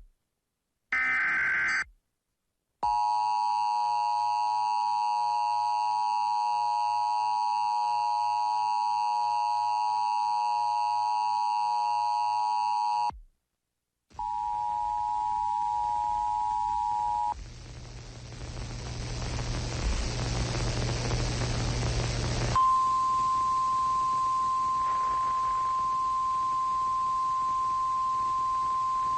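Emergency Alert System tones: two short screeching data bursts, then the steady two-note EAS attention signal held for about ten seconds. After a brief gap comes a short single tone, a few seconds of radio static, and then a clean steady single alert tone, the weather-radio warning tone that comes before a spoken warning.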